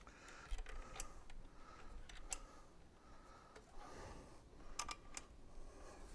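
Faint, scattered clicks and light taps of metal brackets and hardware being handled as a motorcycle radiator is fitted back onto its mounting brackets, with a few sharper clicks about a second in, just past two seconds, and near the end.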